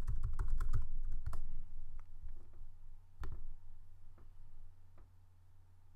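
Typing on a computer keyboard: a quick run of keystrokes in the first second and a half, then a few single clicks about a second apart, the loudest about three seconds in.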